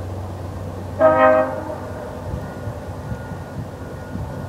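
One short blast, about a second in, of the approaching VIA Rail passenger locomotive's air horn, sounding several pitches at once as a chord, over a low steady rumble.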